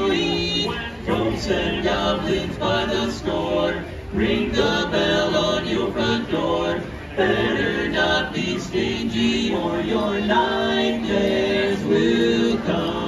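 Barbershop quartet of four male voices singing a cappella in close harmony, with held chords changing every second or so.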